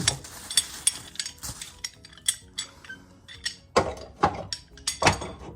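Metal parts clinking and clattering as they are handled: the hood hinges and their bolt hardware being taken out of the box, in a quick run of sharp clicks with a few louder knocks near the end.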